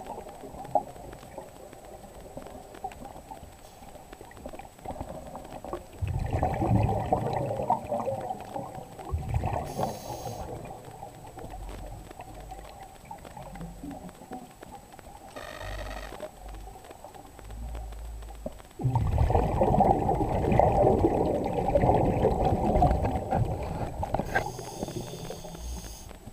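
Scuba diver breathing underwater through a regulator: two long burbling bursts of exhaled bubbles, with short hissing inhalations between them.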